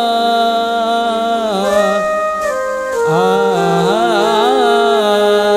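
Live Sindhi folk song: a long, wavering ornamented melody line held without words, over steady sustained accompaniment notes. The accompanying notes shift about halfway through.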